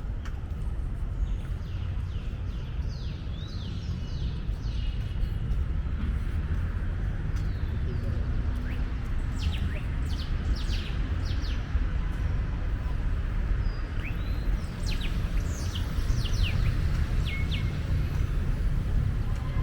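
Small birds chirping, many short quick high calls scattered throughout and busier in the second half, over a steady low outdoor rumble.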